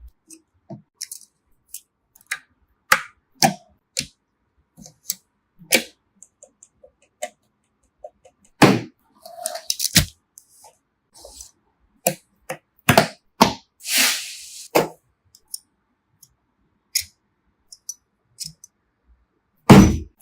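Computer parts being handled and fitted together by hand: irregular clicks, taps and knocks of plastic and metal, with a short scraping rustle about two-thirds of the way through and a heavier knock near the end.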